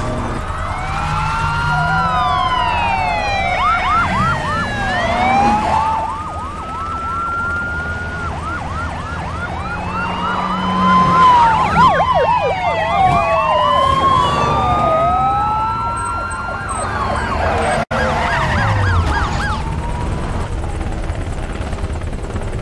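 Several police car sirens going at once, their slow rising-and-falling wails overlapping, with repeated bursts of fast yelping sweeps, over a low rumble.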